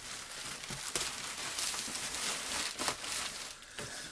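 Packing material rustling and crinkling as a parcel is unpacked by hand, with a few sharp clicks and taps.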